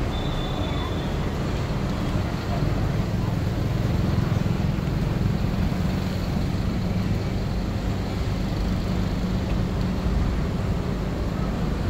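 Tour bus engine running with a steady low hum and rumble, heard from on board, mixed with surrounding city traffic noise.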